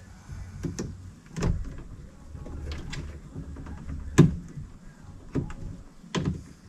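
Scattered plastic clicks and knocks from working at the wiring connector on a power window motor inside a car door, trying to free its locking tab; the sharpest knock comes about four seconds in.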